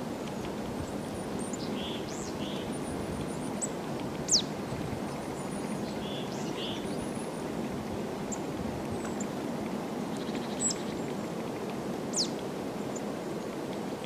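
Small songbirds giving short, high chirps and thin calls over a steady low rushing background. The loudest are two sharp falling notes, one about four seconds in and another near the end.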